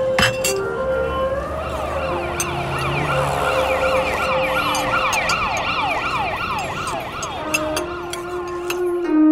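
A rapid yelping siren, its pitch sweeping over and over about three times a second, starting about a second and a half in and stopping near the end, over held music notes.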